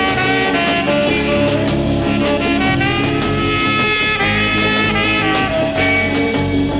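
Swing-style instrumental music with brass and saxophone.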